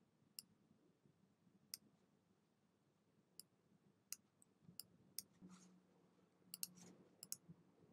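Computer mouse clicks: about ten short, sharp clicks spaced irregularly, a few in quick pairs near the end, over near-silent room tone.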